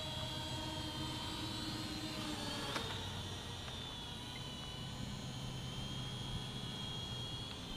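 Eachine E58 pocket quadcopter in flight, its small motors giving a steady high whine that drifts slightly in pitch as the throttle changes. A single sharp click about three seconds in.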